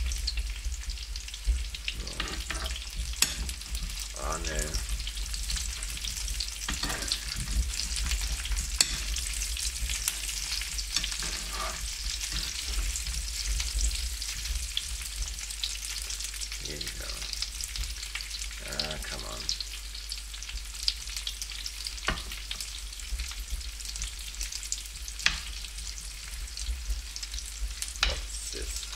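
Potato noodles and corn-flake-coated sausages sizzling as they fry in oil in a pan: a steady hiss, with scattered clicks as the food is turned in the pan.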